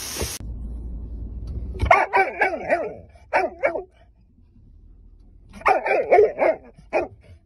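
A dog barking and yipping inside a car: two quick bouts of short barks, the first about two seconds in and the second near the end.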